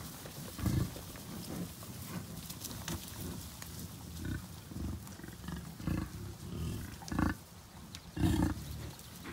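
Bison grunting: a series of short, low grunts from the herd close by, the loudest about a second in and near the end.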